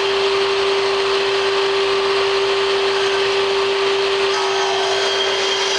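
Sliding compound miter saw's motor running at full speed with a loud, steady whine, the blade spinning free just above the crown molding without cutting into it.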